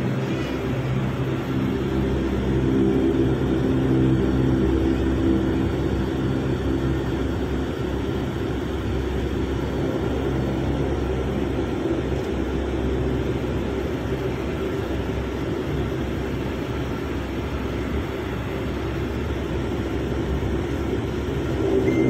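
Airliner engines heard from inside the cabin as the plane taxis before takeoff: a steady drone with a low hum.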